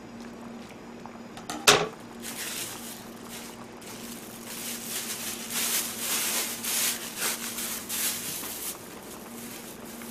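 A sharp click about two seconds in, then a thin plastic bag rustling and crinkling for several seconds as it is handled, over a steady hum.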